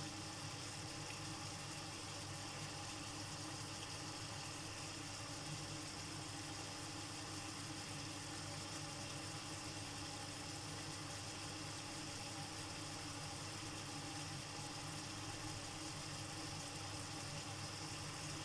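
Chicken liver cooking in a pan with butter, simmering and sizzling steadily in its own released juices, with a steady low hum underneath.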